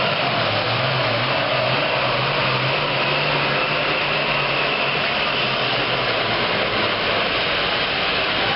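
Turbocharged diesel engine of a Super Farm class pulling tractor, running loud and steady with a dense rushing hiss and a low engine note that shifts in pitch a few times.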